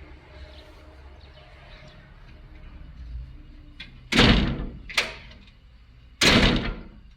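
A door being opened and shut: three loud strokes about four, five and six seconds in, the first and last each lasting about half a second.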